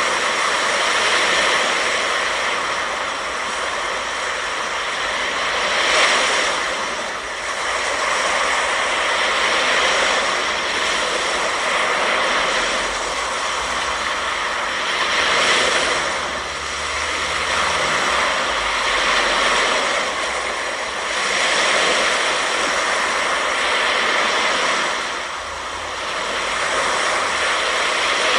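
Ocean surf on a beach: a steady rushing noise that swells and eases every four to five seconds as waves break.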